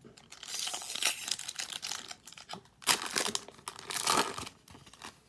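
Foil wrapper of a trading-card pack being torn open and crinkled by hand, in two rustling bouts.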